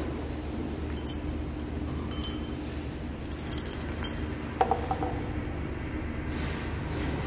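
A few light metal clinks as small hardware is handled. About four and a half seconds in comes a knock with a brief ring as a metal pipe floor flange is set down on the stacked wooden boards. A steady low hum runs underneath.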